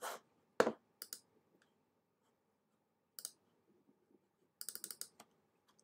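Computer mouse clicking a few separate times, then a quick run of about eight clicks near the end, as buttons in a web page editor are selected.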